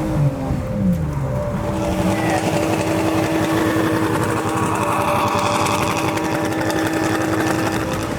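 Car engine running: the pitch drops as the revs fall in the first couple of seconds, then holds steady.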